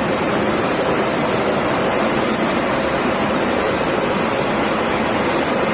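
Steady loud noise of a running industrial recycling line: shredder and conveyor machinery running continuously, with a faint low hum beneath a dense hiss and no distinct impacts.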